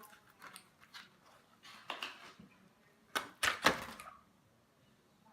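Scattered soft clicks and rustles of objects being handled, then three sharp knocks close together about three seconds in.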